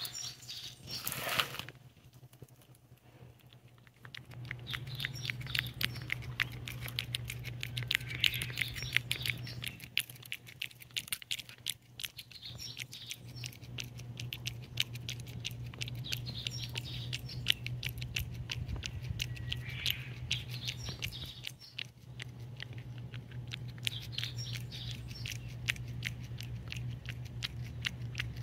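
Cat licking a lickable paste treat from a small saucer: rapid wet licking clicks that start about four seconds in and run on steadily, with a steady low hum underneath.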